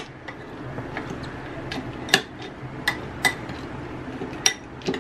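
Metal spoon clinking against a glass bowl while a chopped peanut chaat is stirred: about eight sharp, irregular clinks.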